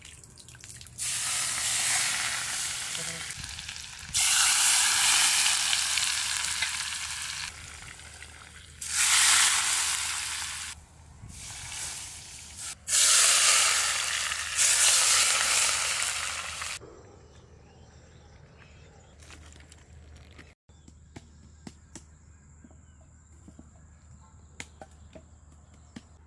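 Hot oil ladled onto marinated mutton in clay pots, sizzling in about five loud bursts that each start sharply and fade away.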